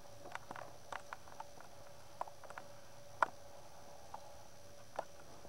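Scattered soft clicks and taps close to the microphone, irregular and about a dozen in all, the loudest about three seconds in, over a faint steady hum.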